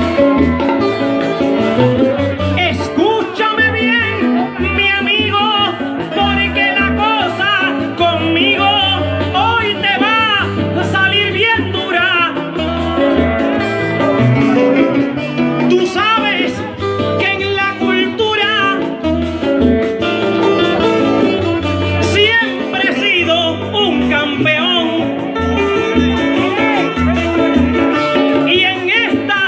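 A male trovador singing an improvised verse of Puerto Rican música jíbara into a microphone, pico a pico, over plucked-string accompaniment.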